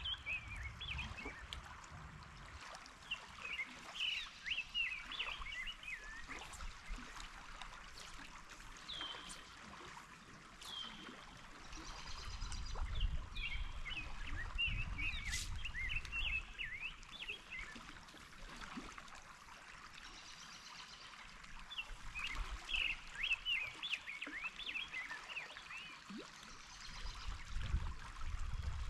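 River water running steadily, with songbirds chirping and singing over it in repeated bursts of quick high notes. Low rumbles come in now and then.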